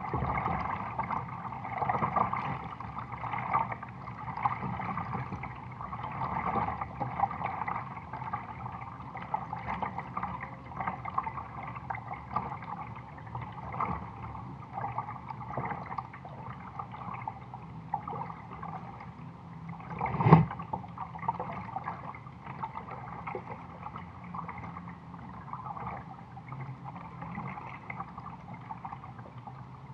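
Water gurgling and lapping against a plastic kayak hull close at the bow as the kayak moves along, swelling and easing every second or so. About two-thirds of the way through there is one sharp knock, the loudest sound.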